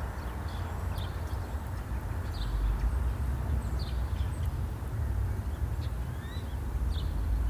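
Steady low rumble, with a few short faint high chirps scattered through it and one rising chirp near the end.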